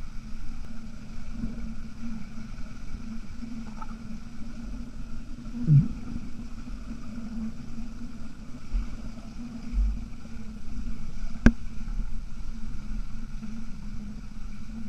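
Underwater pool sound picked up by a submerged camera: a steady muffled rumble with a low hum, a brief swelling gurgle about six seconds in and a single sharp click near the end.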